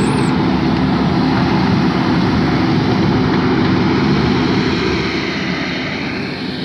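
A motor vehicle engine running steadily close by: a constant drone with a steady low hum, easing off slightly near the end.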